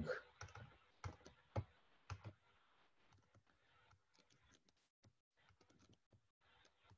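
Faint computer keyboard typing: half a dozen separate keystrokes over the first two seconds or so, then near silence.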